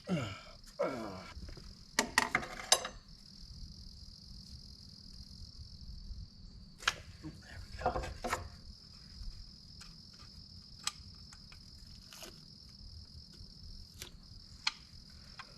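Crickets chirring steadily in a high, even buzz, with scattered metallic clicks and knocks of hand tools working on the engine.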